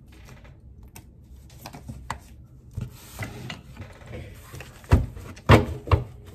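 A deck of tarot cards being handled and shuffled: dry rubbing and clicking, with a few louder knocks near the end.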